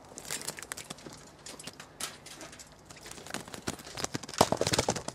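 Footsteps crunching on dry, tilled soil, a run of short crackling steps that grows denser and louder near the end.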